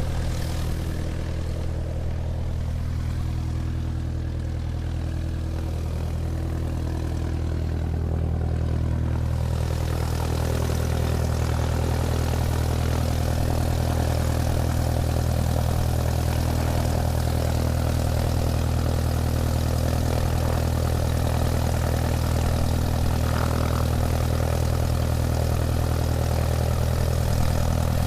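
Airplane taxiing: a steady low engine hum, with the broad rushing noise growing louder about a third of the way in and then holding steady.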